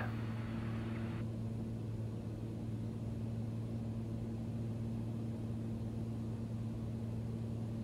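Steady in-flight drone of a Cessna Turbo 206's turbocharged six-cylinder engine and propeller, an even low hum at a fixed pitch.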